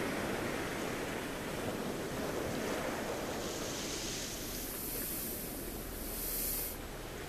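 Sea surf washing ashore: a steady hiss of waves that swells and ebbs, with a brighter, hissier wash in the second half that stops abruptly near the end.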